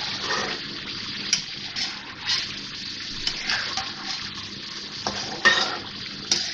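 Chicken sizzling as it fries in oil in a metal karahi, stirred with a metal spatula that scrapes and knocks against the pan again and again. The loudest scrape comes about five and a half seconds in. The masala is at the bhuna stage, fried until the oil has separated.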